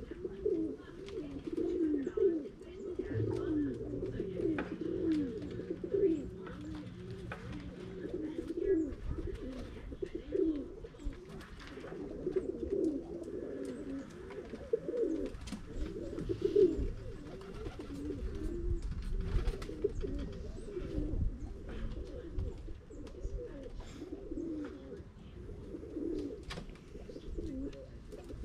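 Several pigeons cooing without a break, their low coos overlapping one another, with scattered faint clicks.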